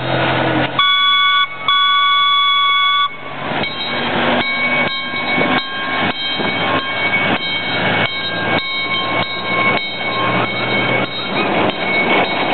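Miniature park train's horn sounds two toots, a short one then a longer one of about a second and a half, as the train departs. Then comes a steady clanking about twice a second over the low running of its engine as it pulls away.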